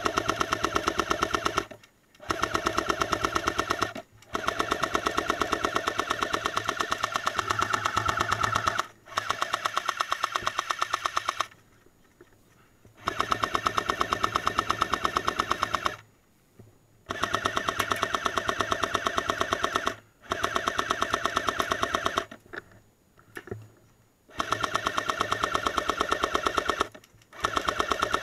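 Airsoft M60 light machine gun replica firing long full-auto bursts, a rapid, even mechanical rattle of shots. There are about eight bursts of two to five seconds each, broken by short pauses.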